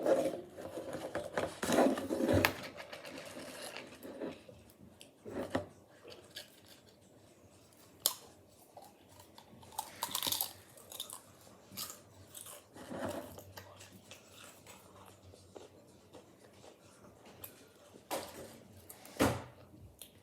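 A person eating potato chips: crisp crunching bites and chewing at an irregular pace, with scattered sharp crunches.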